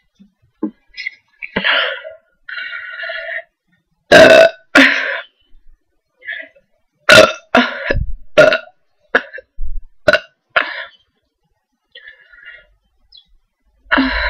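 A woman burping loudly, again and again, from the gas of gulped Coke. Two big burps come about four seconds in, then a quick run of shorter burps about half a second apart.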